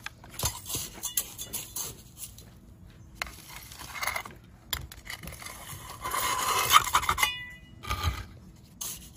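Scraping, rustling and light clinks of hand repotting work on a succulent, with potting soil and grit handled in and around a pot. The longest and loudest gritty scrape comes about six to seven seconds in.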